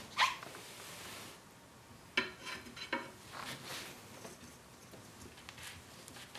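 Steel tire iron clinking and scraping against an alloy wheel rim as it is pried in between the rim and the bead of a stiff run-flat tire, in a few separate knocks and scrapes.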